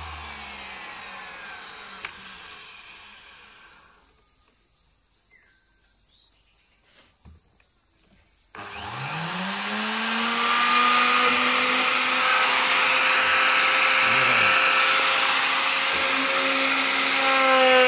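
Electric woodworking power tool: its running sound dies away over the first few seconds, then after a quiet pause its motor starts about nine seconds in with a rising whine. It settles into a steady, loud whine over hiss as it runs at full speed.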